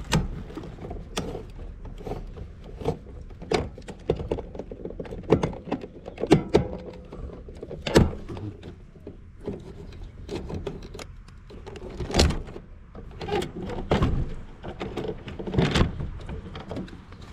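Irregular clicks, knocks and thunks of hand tools and wires being handled as the incoming power wires are disconnected from a SureSwitch in an HVAC unit's electrical compartment.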